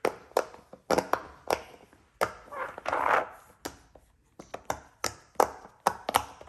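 Silicone Pop-It fidget toy shaped like a game controller, its bubbles pressed one after another: a string of sharp pops a few per second at uneven spacing, with a longer rubbing sound about three seconds in.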